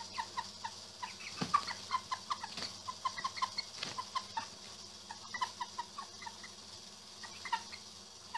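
White broiler-type hens clucking softly in quick runs of short notes, about three or four a second: low contact calls from one hen to her companion in the sling. A few soft bumps of movement come through between the calls.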